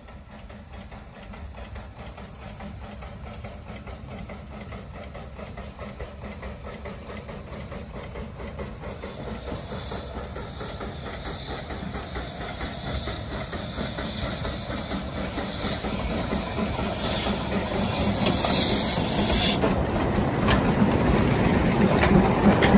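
Narrow-gauge steam locomotive drawing steadily nearer and passing close, chuffing, with steam hissing from low at its front. The sound grows louder throughout, with a loud burst of hiss about three-quarters of the way through.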